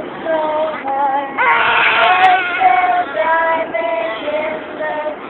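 A high-pitched singing voice holding drawn-out, steady notes in phrases, with short breaks between them.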